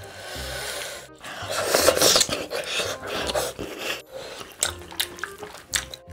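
Close-miked ASMR eating sounds: gloved hands tearing apart a sauced roast chicken, with wet smacking and chewing as meat is bitten off. Soft background music with low bass notes plays underneath.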